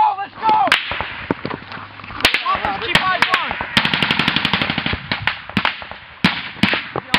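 Gunfire in a firefight: scattered single shots and sharp cracks, with a fast automatic burst of more than a dozen rounds starting about four seconds in.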